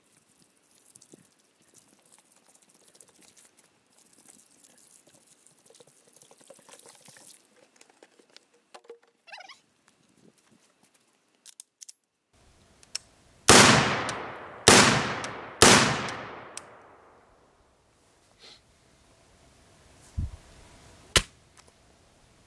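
Rifle firing three single shots about a second apart, each with a long echoing tail: the clean function check before the rifle is dropped in mud. Two short knocks of handling follow near the end.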